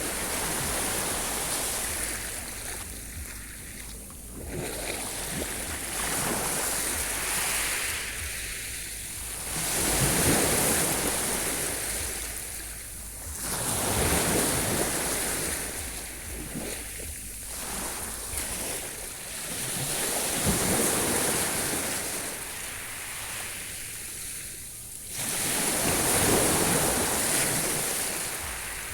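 Sea waves breaking on the shore and washing back, the surf swelling and fading every three to five seconds.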